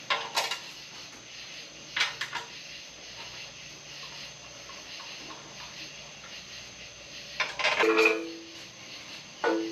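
Metal parts and tools clinking in short bursts during engine assembly, three clusters of sharp clicks. Near the end a steady two-tone whine or hum starts and keeps going.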